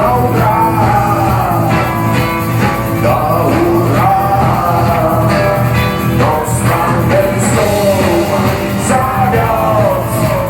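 Rock song: a lead vocal sings bending, held lines over a steady band backing with a sustained bass.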